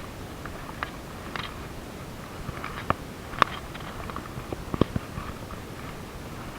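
Footsteps crunching on a dry trail: scattered sharp clicks and crackles at irregular intervals over a steady hiss.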